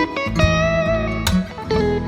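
Background music: guitar played with plucked and strummed notes over a steady bass.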